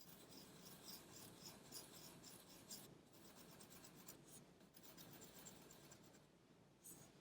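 Pencil drawing on paper: faint, quick scratchy strokes with a few short pauses.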